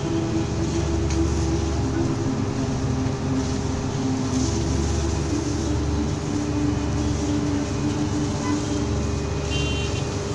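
Busy street traffic: a steady rumble of vehicle engines, with a short car-horn toot near the end.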